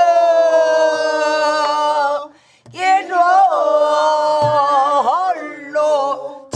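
Pansori singing: a long held note slides slowly downward and breaks off about two and a half seconds in, then the voice returns with a wavering, ornamented phrase. A few low strokes of a buk barrel drum mark the rhythm underneath.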